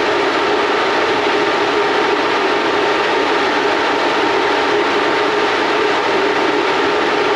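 Sandblast cabinet running: a steady, unbroken hiss of compressed air and abrasive grit blasting the mini bike's handlebars and front end, with the cabinet's fan running underneath.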